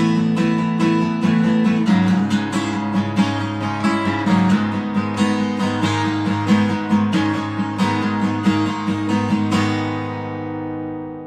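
Acoustic guitar being strummed, a steady run of strokes that ends on a final chord about ten seconds in, left to ring and fade away.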